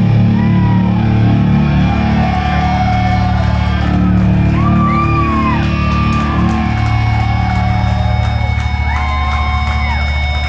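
Live rock band playing loud: distorted electric guitar with bent, gliding notes over drums and a heavy, booming low end.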